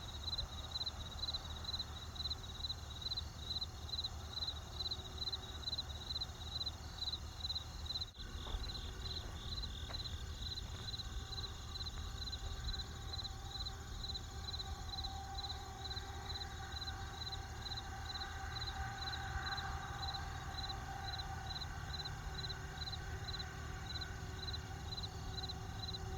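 Crickets chirping in a steady rhythm, about two to three chirps a second, over a steady high trill and a low rumble. A brief sharp break comes about eight seconds in.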